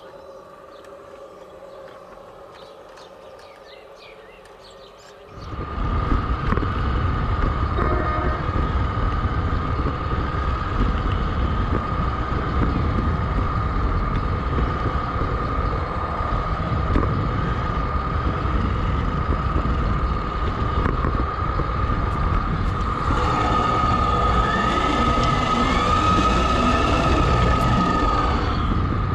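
Model garden-railway locomotive heard from on board as it runs along the track: a steady high motor whine over a dense rumble and clatter of wheels on rail joints. It comes in suddenly and loud about five seconds in, after a quieter stretch.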